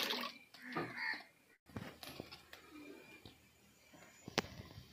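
Water poured from a steel bowl into a metal kadhai, the pour stopping just after the start. Then faint, sparse ticks with one sharp metallic clink near the end.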